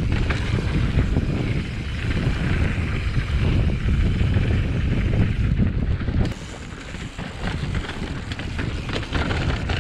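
Wind buffeting an action camera's microphone while a mountain bike rolls fast down a dirt track. About six seconds in it drops to a quieter, lighter rattle of tyres and bike over a rocky trail.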